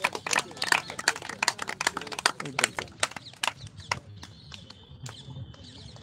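A group of people clapping, quick irregular claps that thin out and stop about four seconds in.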